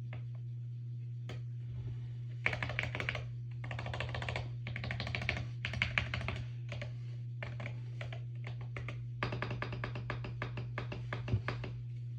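Fast typing on a mechanical keyboard with ceramic keycaps on Lekker V2 magnetic switches: dense runs of clacking keystrokes that start a couple of seconds in, pause briefly past the middle, then resume. A steady low hum runs underneath.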